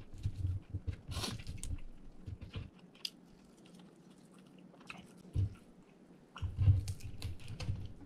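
Chewing and crunching on deep-fried quail: a spell of crunchy bites and chewing, a pause of about two seconds, then more chewing near the end.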